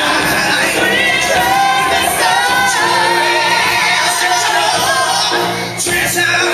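Live stage-musical number: several performers singing together over loud, amplified backing music.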